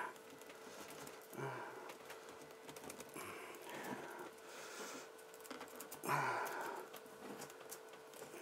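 Faint clicks and scrapes of a puzzle being handled as a rotary-dial-like part is turned to rotate a plate, with two short exhales of effort, about a second and a half in and again near six seconds. A faint steady hum runs underneath.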